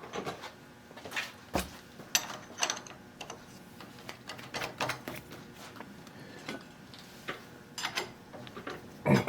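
Scattered, irregular metal clicks and knocks of machine-shop tooling being handled, as a small drill chuck is fetched and fitted in the mill.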